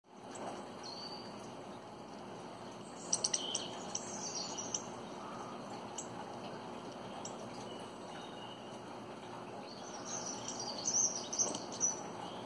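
Birds chirping in short high bursts, about three seconds in and again after ten seconds, over a steady hiss.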